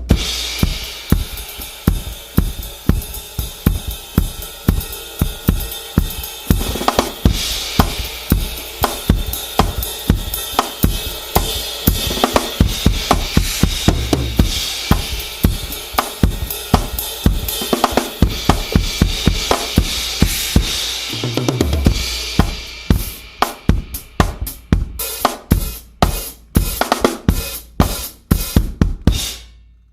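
Tama drum kit played in a fast solo: dense bass drum, snare and hi-hat strokes under a wash of cymbals, with tom fills. Near the end it breaks into spaced, heavy accented hits with cymbal crashes and then stops.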